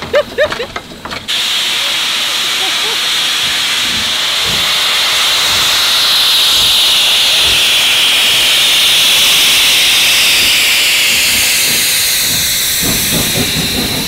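Steam locomotive venting steam in one long, loud hiss that starts abruptly about a second in, swells towards the middle and eases off near the end.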